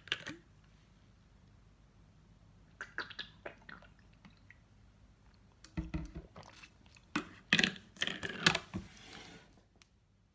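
A person drinking water: short clusters of sipping, swallowing and wet mouth sounds about 3 seconds in, about 6 seconds in and again from about 7 to 9 seconds, with quiet between.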